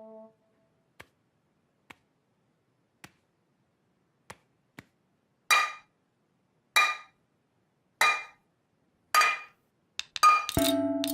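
A series of struck clinks on a hard, ringing object: a few faint taps, then four evenly spaced louder clinks about a second and a quarter apart, each ringing briefly, then a quick flurry of strikes with held ringing tones near the end.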